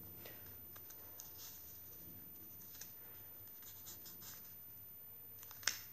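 Paper pages of a chunky handmade mini journal turning and rustling softly under the fingers, with a few light ticks and a sharper tap near the end.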